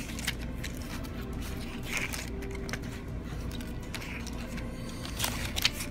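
Pages of a spiral-bound paper booklet being handled and turned: faint scattered rustles and soft taps over a steady low hum.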